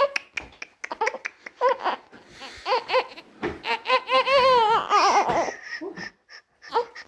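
High-pitched laughter in short repeated bursts, with a longer wavering stretch about four seconds in.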